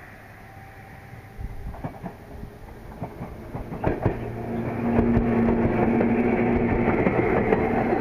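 Local electric train approaching and passing, growing louder from about a second and a half in. Its wheels click over rail joints, and a steady motor hum sets in once it is alongside.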